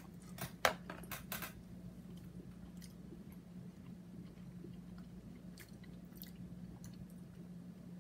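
A ration chocolate bar being handled and bitten into: a quick run of sharp crackles and snaps in the first second and a half, then a few faint clicks, over a steady low hum.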